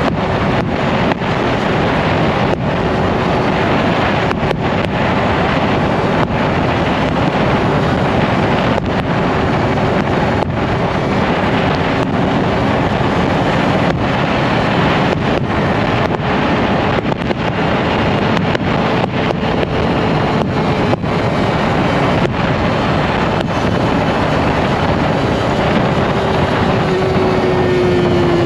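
Motorcycle riding at a steady speed, with heavy wind rushing over the microphone nearly drowning the engine's steady note. Near the end the engine note falls as the bike slows.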